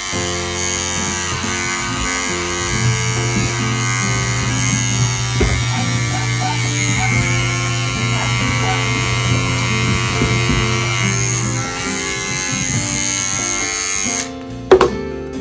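Electric pet grooming clippers buzzing steadily, cutting out about fourteen seconds in, followed by a sharp click. Background music plays throughout.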